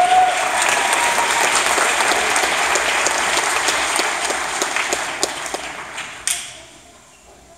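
Audience applauding, with a short shout near the start; the clapping fades away about six to seven seconds in.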